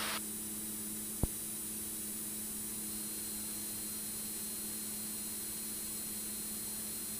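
Steady drone of a Cessna 206 Stationair's engine with an even hiss, at reduced approach power on final, with one sharp click about a second in.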